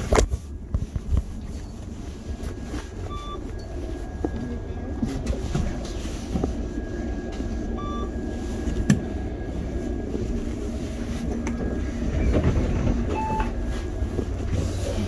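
Steady low rumble of a moving vehicle, with three brief faint beeps.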